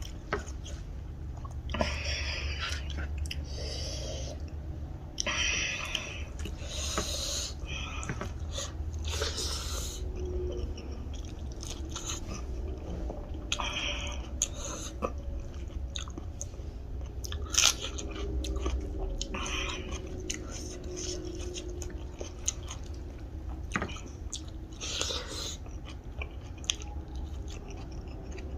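A person eating, chewing mouthfuls of food with repeated crunchy bites at an irregular pace.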